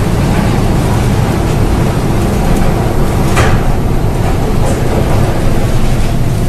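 Steady heavy rumble of a merchant ship under way at sea, heard on its open deck, with a brief rushing splash of sea water across the deck about three and a half seconds in.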